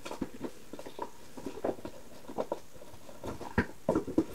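Light knocks and taps of small objects being moved and set down on a tabletop, with a couple of louder knocks near the end.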